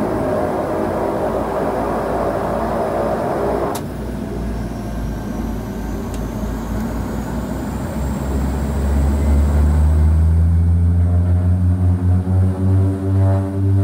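Twin Otter's two Pratt & Whitney PT6A turboprops and propellers heard from inside the cabin. A rushing noise stops with a click about four seconds in. From about eight seconds the propellers' low drone rises in pitch and grows loud as power comes up, pulsing as the two propellers beat against each other.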